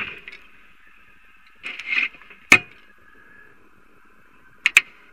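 Onboard audio from a STIG-A rocket's camera high above the Earth: a faint steady hum, a short rattling burst about two seconds in, a sharp knock just after it, and two quick sharp clicks near the end. The tail of a loud bang is dying away at the start.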